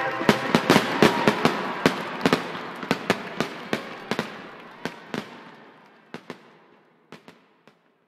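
Fireworks crackling and popping: irregular sharp cracks over a hiss that fades, the cracks thinning out and dying away near the end.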